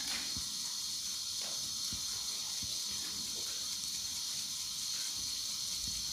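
Soft, faint taps and pats of sticky wheat-and-jaggery dough being rolled into balls between oiled hands and set on a plate, over a steady high hiss.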